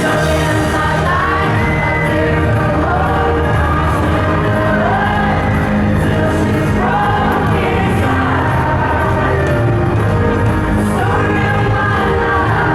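Live pop music: male voices singing a melody over a band played through a PA system.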